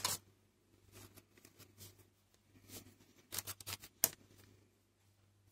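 Baking paper lining a pie dish rustling and crinkling as fingers press pie dough into the dish and against its paper edges, with soft scattered crackles and a sharper crinkle about four seconds in.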